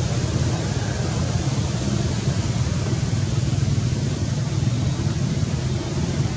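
Steady low rumbling noise with a hiss above it, unchanging throughout.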